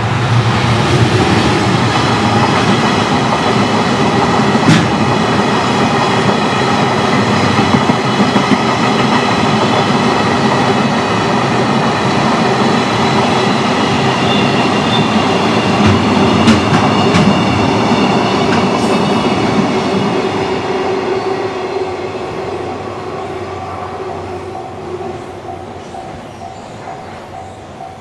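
Freight train of tank wagons rolling past over a level crossing, wheels clattering over the rail joints, the rumble fading away over the last several seconds. Near the end a crossing bell dings at a steady beat.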